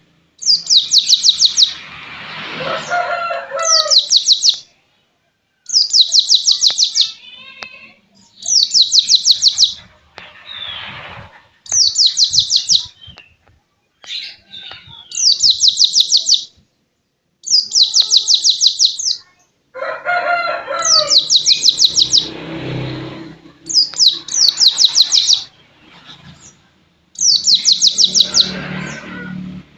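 White-eye (pleci) singing its "pistol air" song: repeated bursts of rapid, high-pitched pulsed notes, each about a second long, every two to three seconds. Fainter lower calls fill the gaps between bursts.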